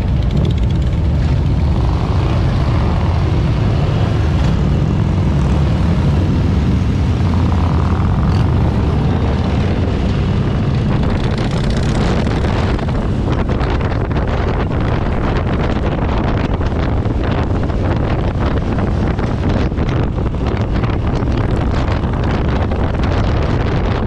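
Motorcycle engines running steadily while riding in a pack, a low rumble throughout, with wind buffeting the microphone from about halfway through.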